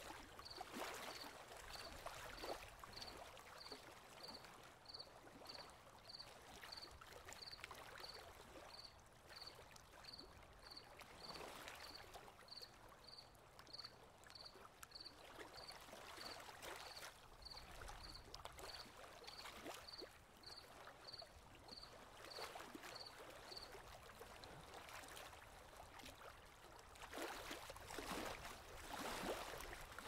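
Gentle surf: small waves washing in and easing off in slow swells, the biggest near the end. Over it an insect gives a short high chirp about every two-thirds of a second, stopping about three-quarters of the way through.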